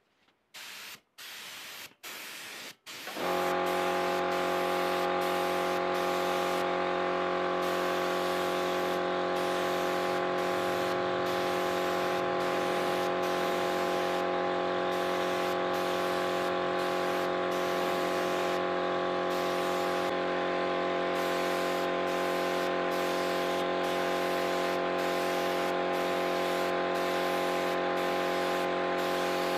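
Gravity-feed air spray gun hissing as it sprays clear coat onto a car bumper: a few short trigger bursts at first, then long passes of hiss that break off briefly every second or two. From about three seconds in, a steady machine hum with several even tones runs under the hiss.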